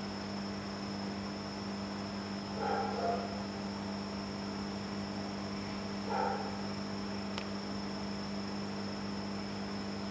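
Steady electrical hum with a faint high-pitched whine above it. A short, soft sound comes twice, about three and a half seconds apart.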